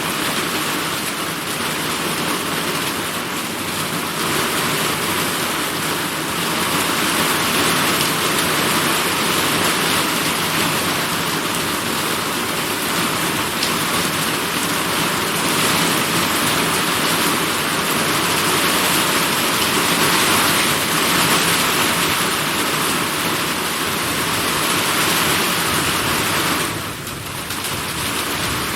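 Summer rainstorm: rain pouring down in a steady, even wash, dipping briefly in loudness near the end.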